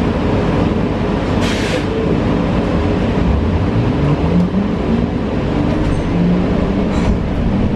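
Interior ride noise of a New Flyer XE40 battery-electric bus: steady road and body rumble, with the Siemens ELFA2 electric drive's whine rising in pitch as the bus picks up speed. A short hiss comes about a second and a half in.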